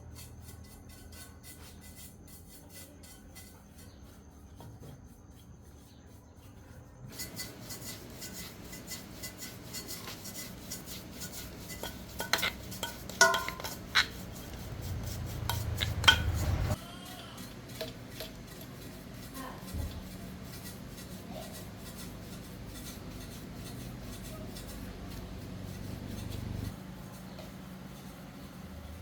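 Metal tools and machine parts clinking and scraping during a repair, quiet at first, with a cluster of sharp metallic clanks over a low rumble about halfway through that stops suddenly.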